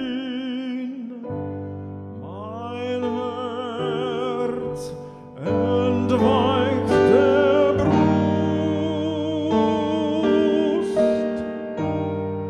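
Classical male voice singing a German art song with wide vibrato, accompanied by piano chords.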